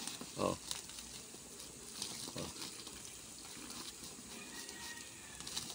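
Water running steadily into a large container of cocopeat, filling it to soak the coir for fermentation.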